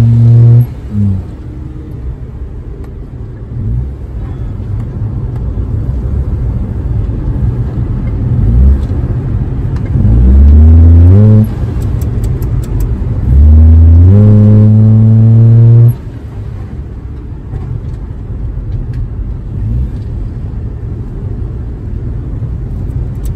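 Small car driving in slow city traffic: steady engine and road rumble, with two loud held low tones about ten and fourteen seconds in. Each rises in pitch at the start, holds for a second or two, then cuts off suddenly.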